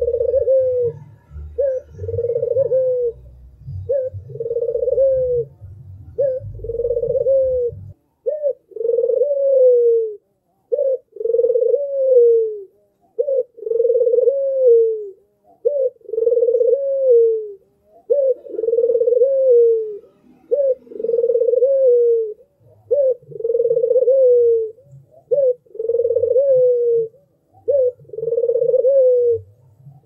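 White (albino) Barbary dove cooing over and over, each coo a short note followed by a longer, falling one, about once a second.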